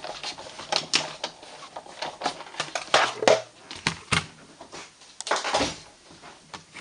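Big Shot die-cutting machine being loaded and cranked: irregular plastic clicks and clacks from the cutting plates and platform, with a couple of longer scraping sounds as the plate sandwich feeds through the rollers.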